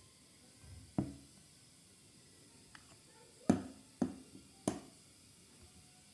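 Four short knocks: one about a second in, then three close together between three and a half and five seconds, with a faint click before them.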